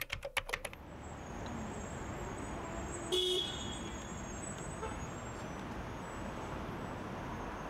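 Steady city street traffic noise with a short car horn toot about three seconds in, after a few quick sharp clicks at the very start.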